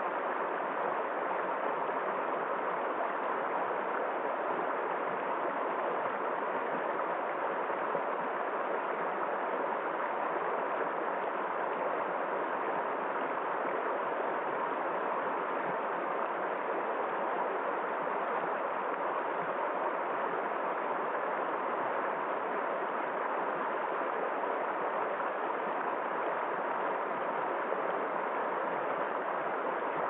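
Shallow rocky stream rushing over stones in small rapids: a steady, unbroken rush of water.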